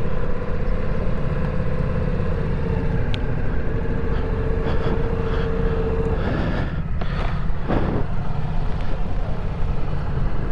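Ducati Multistrada V4 Rally's V4 engine running at low speed while the bike rolls over gravel and pulls up to a stop. A steady whine over the engine cuts off about six seconds in, and a few brief scuffing noises follow.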